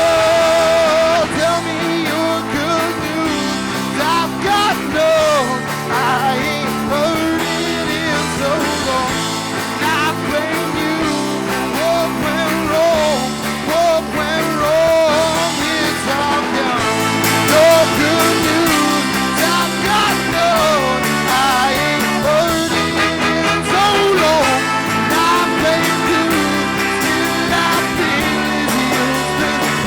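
Live rock band playing a song, with full guitar, bass and drums and a wavering lead melody line over the chords.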